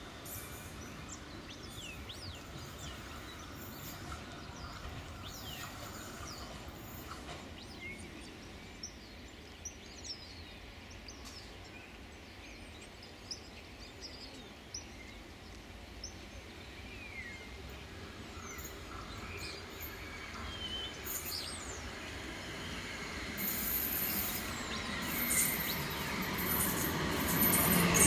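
Birds chirping over quiet trackside ambience, then from about two-thirds of the way through a Bombardier Flexity Swift tram approaching, its running noise rising steadily until it passes close by at the end.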